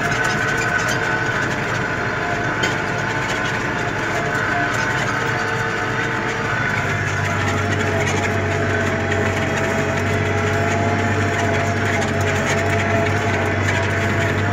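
Tractor engine running steadily under load, heard from the cab, while it pulls a tillage implement through the soil. The low engine note grows a little stronger about halfway through.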